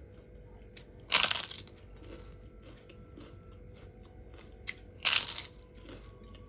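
Two loud crunching bites into crispy food close to the microphone, about a second in and again about five seconds in, each lasting about half a second, with faint chewing clicks in between.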